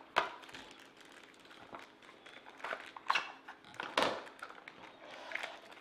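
Small mystery-pin boxes and foil wrappers being opened and handled: irregular crinkles, rustles and clicks, the loudest near the start and about four seconds in.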